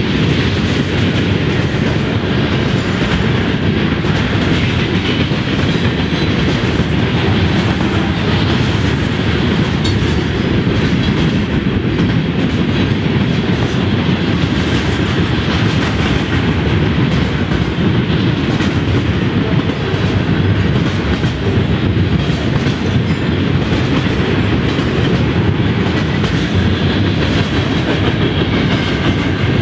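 Mixed freight train cars rolling past close by: a steady, loud rumble of steel wheels on the rails, with faint repeated clacks, that holds even throughout.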